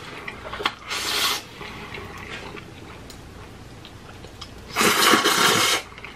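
Spicy ramen noodles being slurped into the mouth: two slurps, a short one about a second in and a longer one near the end, with quieter mouth sounds between.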